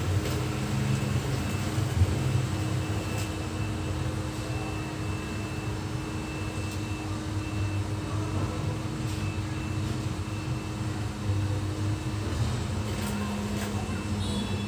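A steady low mechanical hum with a faint steady tone over it and a few soft clicks.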